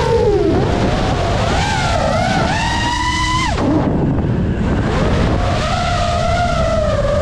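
FPV racing quadcopter's motors and propellers whining, the pitch sliding up and down with the throttle over a steady rush of air. About three and a half seconds in the whine drops sharply as the throttle is cut for a dive, then climbs back as the power comes on again.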